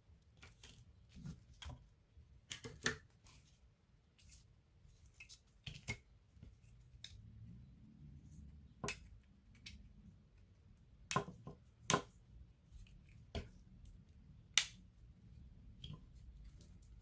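Irregular small clicks and taps, as of tools and plastic and metal laptop parts being handled during disassembly. The sharpest come about three, twelve and fifteen seconds in.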